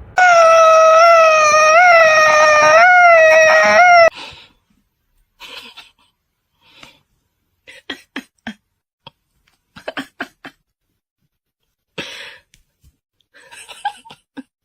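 A pet animal's long howl, held at one pitch with a few small upward wobbles, lasting about four seconds and cut off sharply. Faint scattered small sounds follow.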